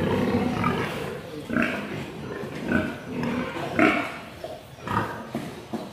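Pigs grunting: a string of short grunts about a second apart, of the kind a boar makes while mounting a sow.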